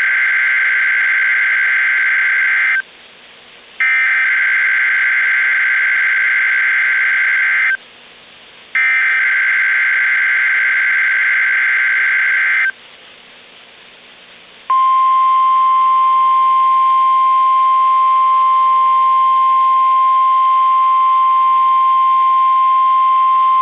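NOAA Weather Radio Emergency Alert System signal: three bursts of warbling data tones (the SAME header), each about four seconds long with a second's pause between them. About two seconds later the weather radio warning alarm tone starts, one steady high pitch held for about nine seconds, the signal that activates weather radios before the spoken message.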